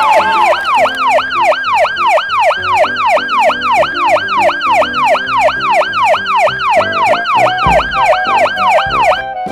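Emergency vehicle siren in a fast yelp, its pitch sweeping up and down about three times a second, cutting off just before the end.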